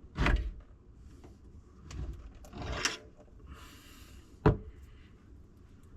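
A screwdriver knocking and prying at a garbage disposal's mounting ring to work the unit loose. A sharp knock comes just after the start, scraping and rubbing follow around two to three seconds in, and a sharper knock comes about four and a half seconds in.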